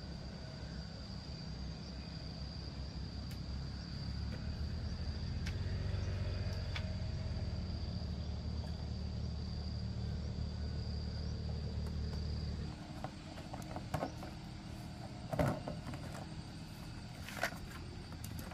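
A small engine running steadily, louder for a while, then cutting out about 13 seconds in. A few knocks follow. A high, thin insect whine is heard over the engine for most of its run.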